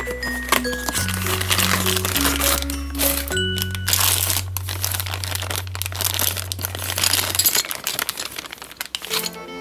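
A clear plastic bag crinkling and crackling as it is handled around a die-cast model airplane, over background music with a steady bass line. The music switches to a new tune near the end.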